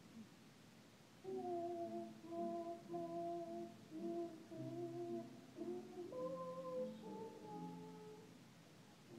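Children's choir singing held notes together over upright piano accompaniment, the voices coming in about a second in.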